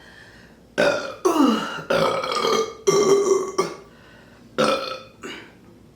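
A woman belching repeatedly from the gas of a bottle of ginger ale just chugged: a run of loud burps starting about a second in, the first dropping in pitch, then one more after a short pause.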